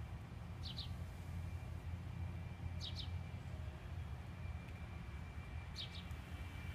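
A bird giving a short double chirp three times, about every two and a half to three seconds, over a steady low rumble of outdoor ambience.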